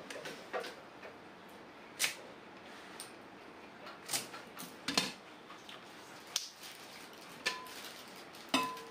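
Scattered light knocks and clinks of kitchen utensils and dishes set down on a counter, about ten in all, the last two with a short metallic ring.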